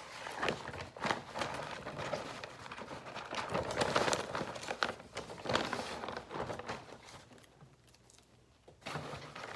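Paper fast-food packaging rustling and crinkling as it is handled, in irregular bursts, with a quieter pause near the end.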